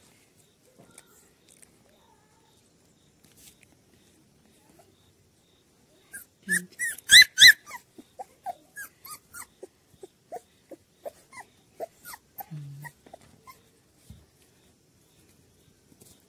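Puppies yelping and whimpering while play-wrestling: a few sharp, high yelps about six seconds in, the loudest, then a string of short whimpers, about two a second, for several seconds.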